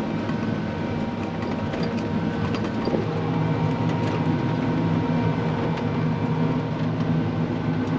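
Crop sprayer's engine running steadily under load, a constant low drone with a faint steady whine above it, heard from the operator's cab while spraying.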